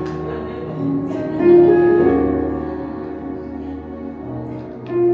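Keyboard playing slow, held chords that change a few times.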